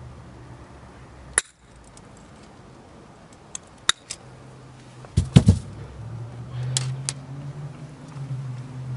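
Wire snippers cutting off the loose end of a cable: sharp snapping clicks, the first about a second and a half in, and a louder cluster of clicks and knocks about five seconds in.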